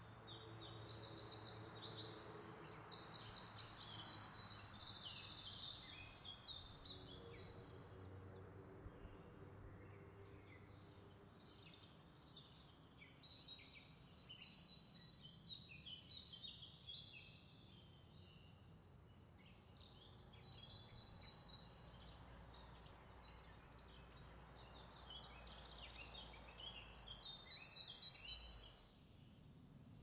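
Background songbirds singing: many overlapping high trills and chirps, busiest in the first few seconds and again near the end, over a faint steady hiss.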